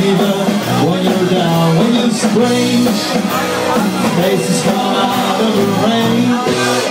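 A rock band playing live, loud: electric guitar, bass guitar and drums, with a man singing into a microphone.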